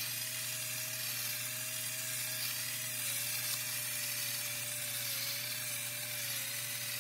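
Electric pepper grinder running steadily, its small motor giving a faint, slightly wavering whine over a low hum as it grinds pepper.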